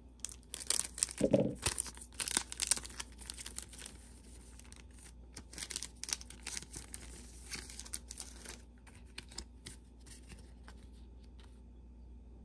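Foil Pokémon card booster-pack wrappers being torn open and crinkled, a run of quick crackles that is busiest in the first few seconds and then settles into softer rustling and crackling.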